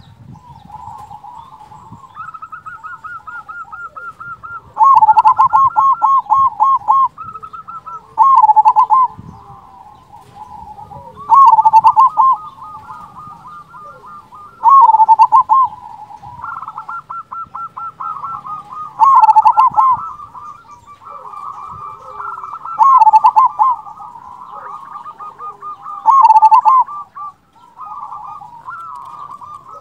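Zebra dove (perkutut) singing: loud, rapid rolling coo phrases repeated about every three to four seconds, with quieter cooing between them.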